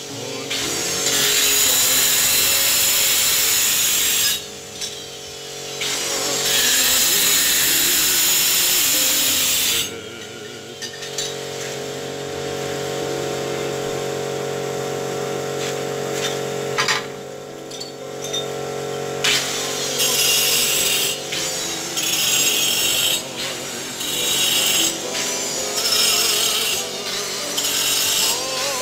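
Rough scraping strokes of a hand tool over a stone-and-cement wall: two long passes of a few seconds each in the first third, a quieter stretch, then a run of short strokes about a second apart near the end.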